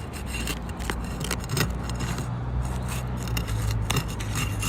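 Scraping and irregular clicking from an asphalt shingle being handled and bent back, with loose granules crackling off it. A low steady hum runs underneath.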